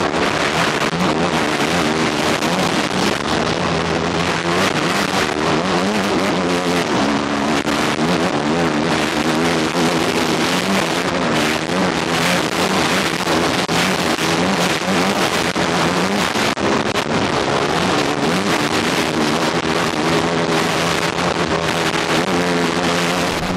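Kawasaki KX250F four-stroke single-cylinder dirt bike engine ridden hard, its revs rising and falling over and over as the rider works the throttle and gears. A constant rushing noise runs under the engine.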